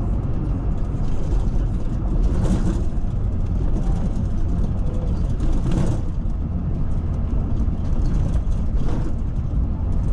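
Engine and road noise of a moving coach bus heard inside the passenger cabin: a steady low rumble, with brief louder swells about two and a half, six and nine seconds in.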